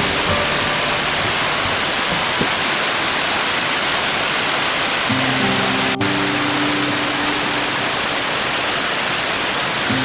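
Waterfall rushing steadily, a loud, even hiss of falling water, with background music coming in about halfway through.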